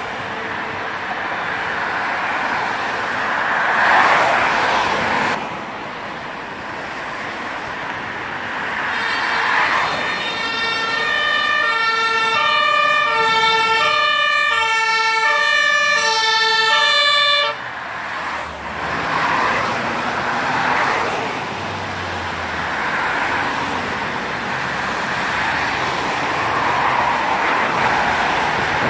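Fire engines' two-tone sirens (German Martinshorn) alternating between a lower and a higher note for several seconds midway, then cutting off abruptly, over road traffic and the rush of vehicles passing close by.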